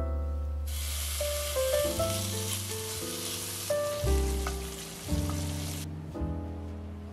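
Chopped bacon sizzling as it fries in an enameled cast-iron oval cocotte. The sizzle starts about half a second in and cuts off about a second before the end, over background music.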